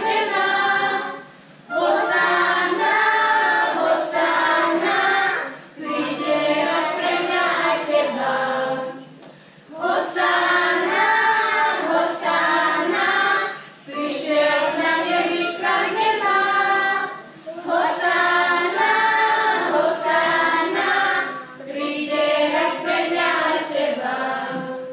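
Children's choir singing a song together in lines of about four seconds, with a short breath between each line; the singing stops near the end.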